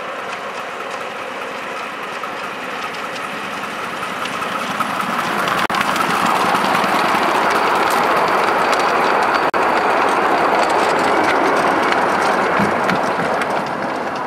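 Miniature steam locomotive running along its track hauling riders and wagons; the sound swells about halfway through and eases off near the end.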